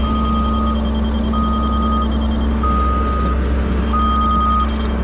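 Heavy earthmoving machine backing up: its diesel engine runs steadily under a reverse alarm that beeps four times, about once every second and a third.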